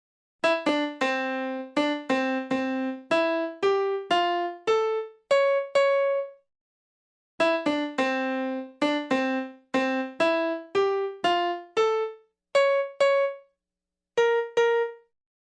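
Short playful electric-piano jingle of quick separate notes, played twice with a brief pause between, then ending on two held notes.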